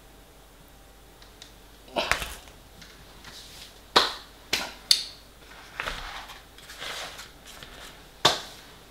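Aluminium foil pie trays handled and set down on a table: several separate sharp clicks and knocks with light crinkling between. The loudest come about four and five seconds in and again near the end.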